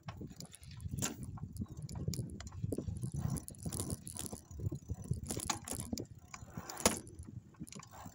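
Bicycle rattling and clattering over rough off-road ground: irregular knocks and jangles over a low rumble, with one sharp knock about seven seconds in.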